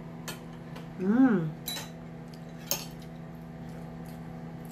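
Cutlery clinking against dishes: three sharp clinks spaced about a second apart. About a second in, a short voiced 'mm' from a person rises and falls in pitch.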